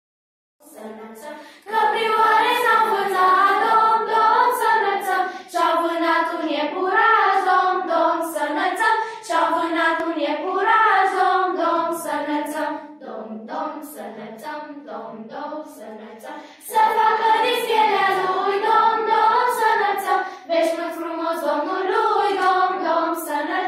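A children's school choir singing a Romanian Christmas carol (colind). The voices enter softly, sing out fully from about two seconds in, drop to a softer passage about two-thirds of the way through, then come back in full.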